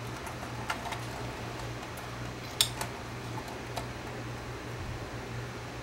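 A few light clicks and taps of a small metal pick and the cassette mechanism's metal and plastic parts being handled while a capstan belt is worked over a pulley, the sharpest about two and a half seconds in. A steady low hum underneath.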